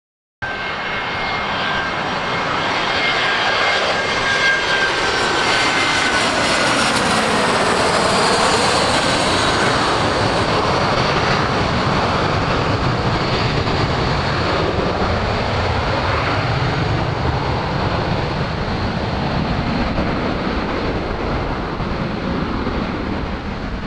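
Allegiant Air Airbus A320-family jet on final approach passing close by, its jet engines running with high whining tones that slide down in pitch as it goes past, loudest about eight seconds in. A deep rumble carries on as the plane lands on the runway.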